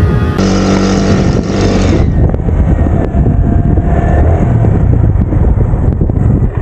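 Strong wind rumbling and buffeting the microphone. For the first two seconds the kites' bamboo flutes are heard over it as a steady drone of several layered tones, then mostly wind with faint flute tones.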